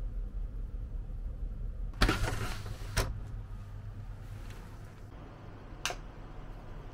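Capsule pod's roller blind being raised: a short rattling rush, then a sharp click about a second later and another click near the end, over a low room hum.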